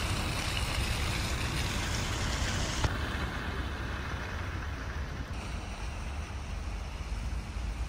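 Outdoor city street sound: a steady wash of traffic noise with a low rumble, no voices. The sound changes character abruptly twice, about three and five seconds in, with a single short click near the first change.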